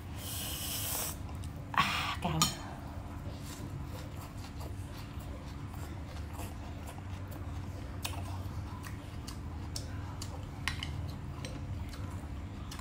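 Close-miked eating sounds: fresh water chive stalks rustling as they are handled, small clicks of chewing, and a metal spoon clinking and scraping in a ceramic bowl. A brief louder sound comes about two seconds in.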